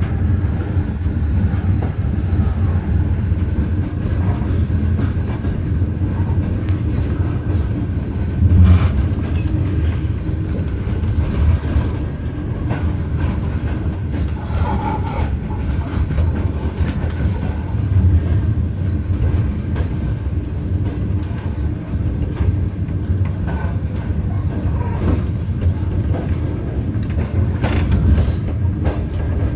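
Train running on the rails, heard from aboard a carriage: a steady low rumble with wheel clatter over the track. There is a sharp knock about nine seconds in and a few more near the end.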